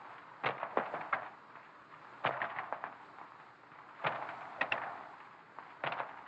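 Light clinks and clatter of dishes and cutlery, in four short bursts of small knocks over a steady hiss.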